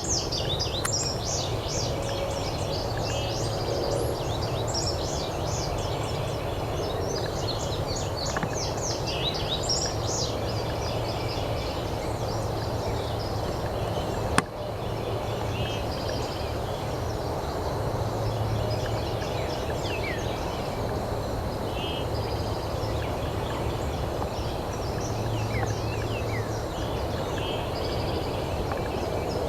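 Woodland bird chorus: songbirds chirping and trilling over steady outdoor background noise, busiest in the first third. A single sharp click comes about halfway through.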